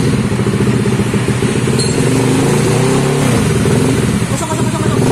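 Yamaha Aerox scooter's single-cylinder engine running steadily at idle, its pitch dipping and rising slightly around the middle. The engine has just been brought back to life, but the mechanic says it still leaks compression slightly at the valves, which he plans to re-lap.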